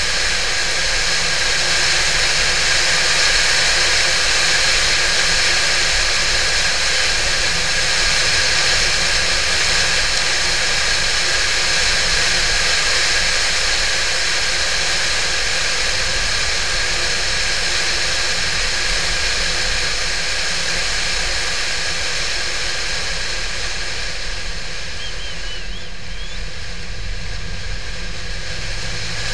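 Porsche 911 (996) at speed: a steady rush of wind and road noise over the flat-six engine. The rush eases near the end as the car slows, and a low engine hum comes through.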